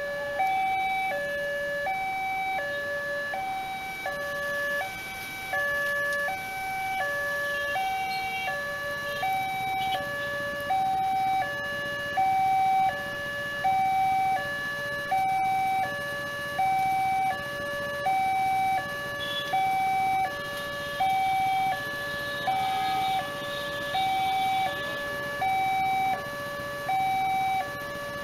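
Railway level-crossing warning alarm: an electronic two-tone signal alternating a higher and a lower tone, repeating steadily. It means the barrier is down and a train is approaching.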